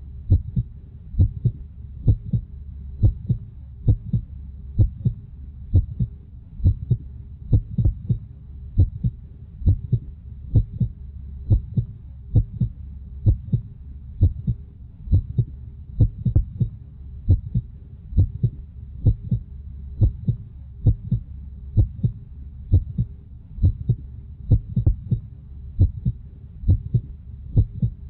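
Heartbeat sound effect: a steady lub-dub double thump repeating about once a second, over a low steady rumble.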